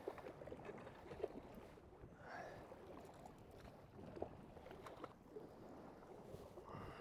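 Faint water lapping and splashing against a fishing kayak's hull, with a few light clicks.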